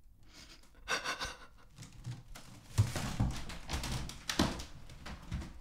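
A woman breathing heavily in a few audible breaths, with soft thumps about three and four and a half seconds in.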